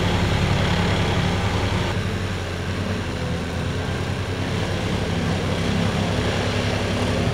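Vermeer PTX44 ride-on tractor running steadily while pulling its plow blade through turf to lay cable, with a fast, even pulsing under the engine sound. It drops a little in level about two seconds in.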